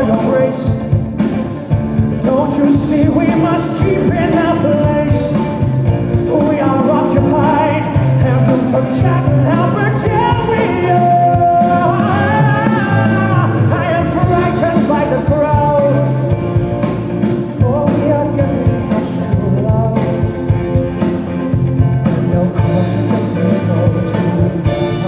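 Male singer belting a rock musical number into a handheld microphone over rock backing music. He reaches a high held note around the middle.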